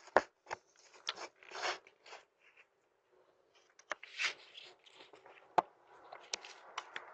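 Irregular scrapes, clicks and taps picked up close to a Ring video doorbell's own microphone as a man handles the doorbell, trying to pry it off its mount. There is a silent pause of about a second partway through.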